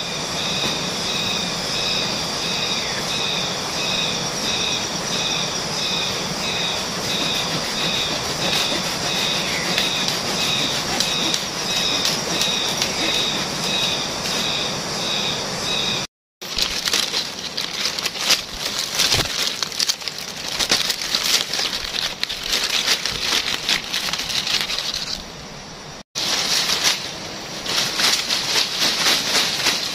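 Tropical forest ambience: a steady hiss with a high chirp repeating about one and a half times a second. After a sudden cut about halfway through, the chirp is gone and irregular crackling and rustling of dry leaves and sticks takes over.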